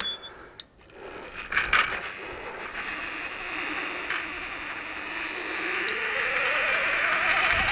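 Electric bike riding off. Its motor whine rises steadily in pitch over the last few seconds as it picks up speed, over a continuous metallic, scraping drivetrain noise with a few clicks near the start. The rider calls it a strange metal pinging sound, like metal dragging on the ground.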